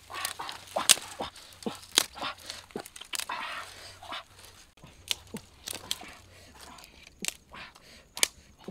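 Dry twigs and sticks snapping as they are broken by hand and piled on grass: a string of sharp irregular cracks, the loudest about a second in, at two seconds and near the end, with a brief rustle of brush in between.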